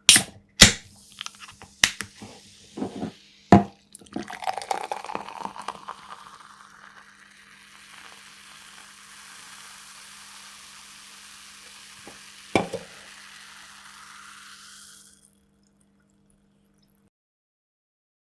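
Soda bottle opened and poured: a few sharp clicks of the cap being twisted off, then fizzy drink pouring out, its pitch rising steadily as the vessel fills, with a fizzing hiss over it. A single knock comes about twelve seconds in, and the pouring stops a few seconds later.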